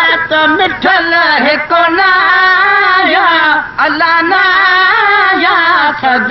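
A man singing a Sindhi molood, a devotional song in praise of the Prophet, in long, wavering, ornamented phrases with no instruments.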